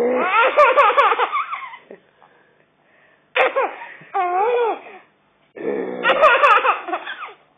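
Baby laughing in three high-pitched bursts of about two seconds each, with short pauses between them.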